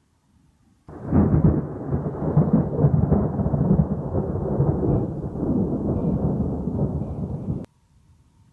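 Thunder that starts suddenly about a second in and rumbles on for six to seven seconds, then cuts off abruptly.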